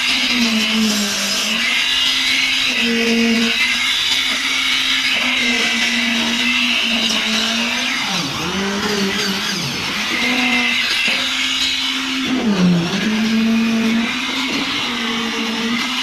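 Concrete poker vibrator running with a steady high hum while consolidating fresh concrete in a slab beam. Its pitch sags briefly twice, around the middle and again about three quarters through, as the motor takes load.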